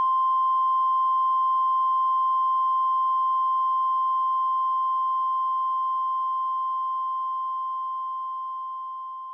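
A single steady electronic tone, the ear-ringing effect after a blast. It starts the moment the blast stops, fades slowly for about nine seconds and then cuts off.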